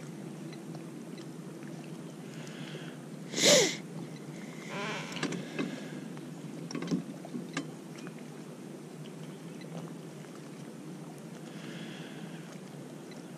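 Steady low hum of a boat motor with faint water and boat noise. A short, sharp sniff about three and a half seconds in is the loudest sound, and there are a few faint knocks later.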